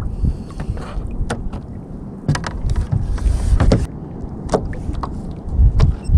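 Wind buffeting the microphone on a fishing kayak at sea, over water lapping against the hull. Scattered irregular knocks and clicks come from the rod and reel being handled during the fight.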